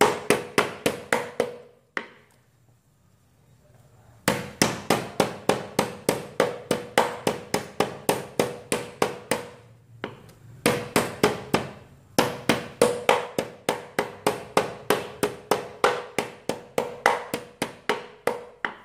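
Metal meat-tenderizing mallet pounding slices of pork loin on a wooden chopping board: rapid, even knocks at about four a second, each with a short ring. The runs of strokes break off briefly a few times, longest for about two seconds near the start.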